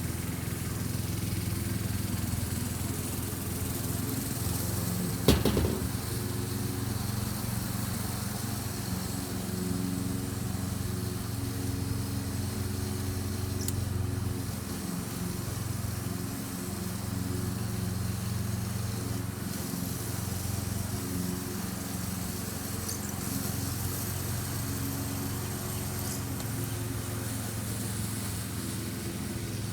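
A steady low motor-like hum that shifts slightly in pitch now and then, with one sharp click about five seconds in.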